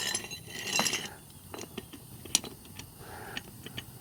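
Metal parts and tools clinking and jangling as they are handled, with a rattling burst in the first second and scattered sharp clicks after.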